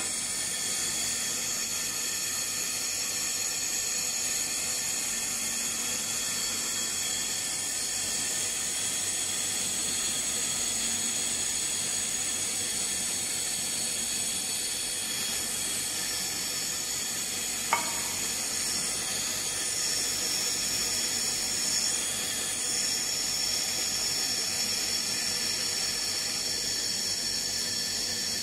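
Fiber laser welding machine running a continuous weld along the seam of a rotating stainless steel ball: a steady hiss with several thin, high, steady whines over it, and one sharp click about eighteen seconds in.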